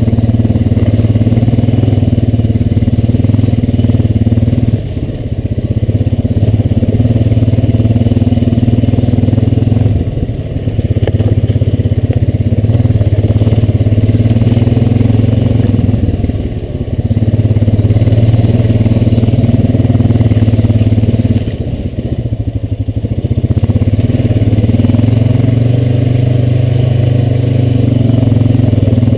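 Honda Rancher 420 ATV's single-cylinder engine running steadily as the quad rides along, easing off briefly four times, every five to six seconds.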